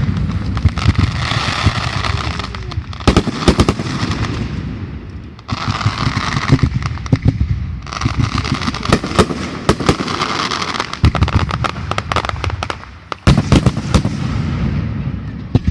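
Fireworks going off in a continuous barrage of rapid bangs and crackling, with fresh volleys starting abruptly several times.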